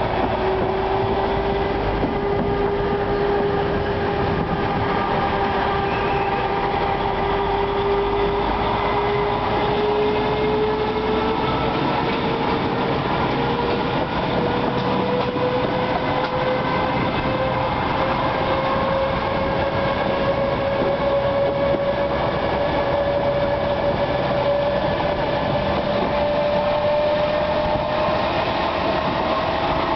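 Narrow-gauge train hauled by the Funkey diesel locomotive 'Vale of Ffestiniog', heard from the coach just behind it as it pulls away. The engine drone and running noise are steady, with a whine that rises slowly in pitch as the train gathers speed.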